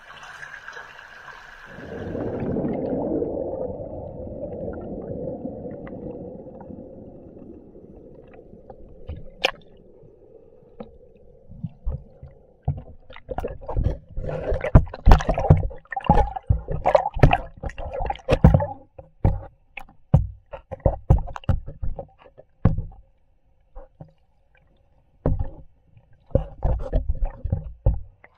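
A camera recording in cold spring-fed stream water: a steady hiss of flowing water suddenly turns into a muffled low rushing about two seconds in as the microphone goes under. From about twelve seconds in come many irregular knocks and thumps as the camera is handled and bumped underwater.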